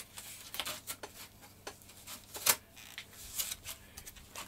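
Masking tape being pulled off its roll and pressed onto a wing: a string of short crackles and taps, the sharpest about two and a half seconds in.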